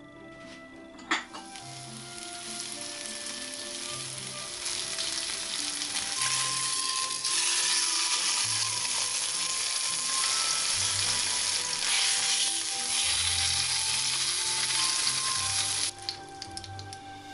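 A seasoned beef roast searing in melted butter in a nonstick frying pan, frying with a dense sizzle that grows louder over the first several seconds and then holds steady. There is a sharp click about a second in, and the sizzle cuts off suddenly near the end.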